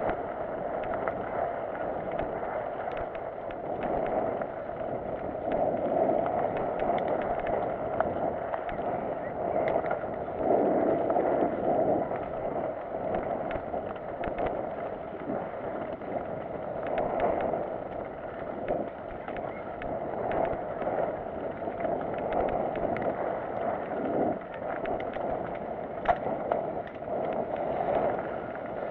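Mountain bike riding fast down a loose gravel singletrack: a steady rush of wind and tyre noise, with frequent small clicks and rattles from the bike going over stones.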